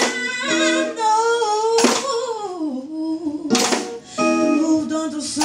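Live rock band playing: a woman sings lead into a microphone over electric guitars, bass guitar and drums, with a crash about every two seconds.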